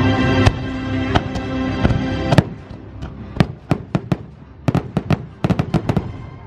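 Fireworks bursting over the show's music soundtrack: a few sharp bangs over held music tones, then about two and a half seconds in the music drops away and a rapid string of about a dozen sharp bangs follows.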